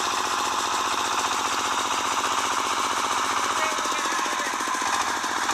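Small home generator engine running steadily, with a rapid, even beat of firing strokes.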